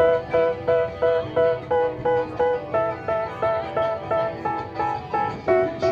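Background music: a plucked string instrument, banjo or guitar-like, picking an even run of notes at about three a second.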